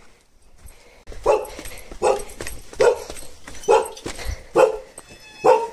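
A dog barking repeatedly: six short, evenly spaced barks, starting about a second in.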